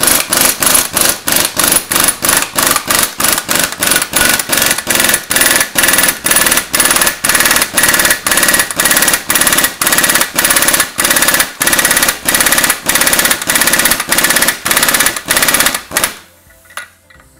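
Air impact wrench hammering in a fast, even series of blows, about three to four a second, as it winds in the centre bolt of a flywheel puller to bring tension onto the flywheel's taper. It stops about a second before the end.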